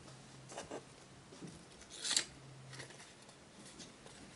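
Scissors cutting the fishing-line cord of a roman blind: a couple of light clicks, then one sharp snip about two seconds in.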